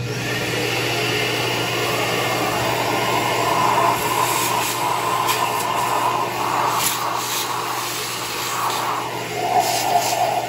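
Vacuum cleaner switching on abruptly and running steadily as its nozzle sucks debris out of the cylinder bores of a Ford 4.6L DOHC V8 block. The pitch of the suction shifts as the nozzle moves and is partly blocked in the bores, and there are scattered clicks of debris being drawn up the hose in the second half.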